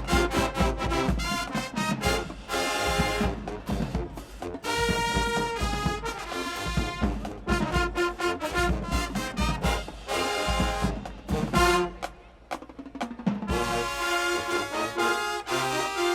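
Marching band playing: brass with trombones and trumpets over a steady beat of bass drums. The band drops away briefly about twelve seconds in, then comes back in full with a loud hit.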